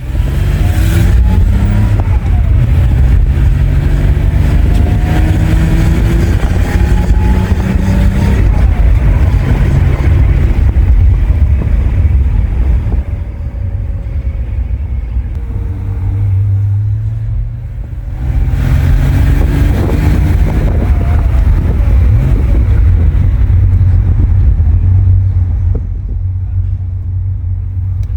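Onboard sound of a modified 1979 Porsche 911 SC's air-cooled flat-six with a free-flowing exhaust, pulling through the gears of its manual gearbox. The engine note climbs for several seconds and drops at a gear change about eight seconds in, eases off for a few seconds past the middle, then pulls hard again.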